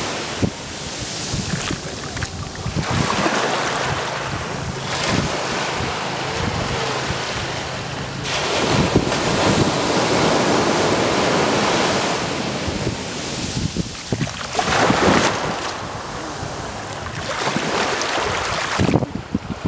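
Small sea waves breaking and washing up the sand at the water's edge, the wash rising and falling as each wave comes in. Wind buffets the microphone underneath.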